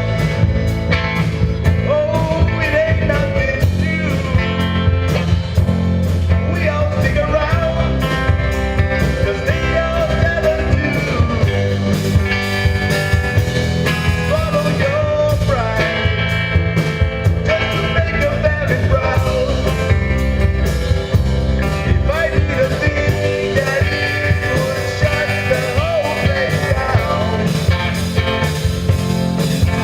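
Rock and roll music with a singing voice, playing steadily throughout.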